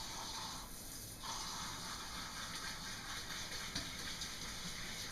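Kitchen faucet water running as soap is rinsed out of coffee cups. There is a short break in the flow sound about a second in, then it runs steadily again.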